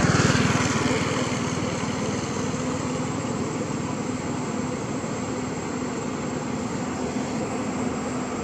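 An engine running steadily in the background, a constant hum that is a little louder at the start and then holds level.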